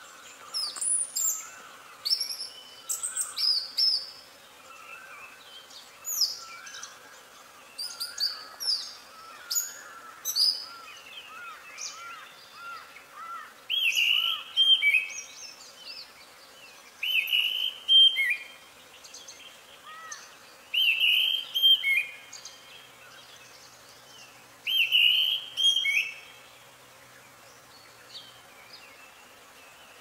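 Orange-headed thrush singing: loud, varied phrases of clear whistled and warbled notes, each a second or two long, with pauses of a few seconds between phrases. Fainter, lower repeated notes run underneath through the first dozen seconds.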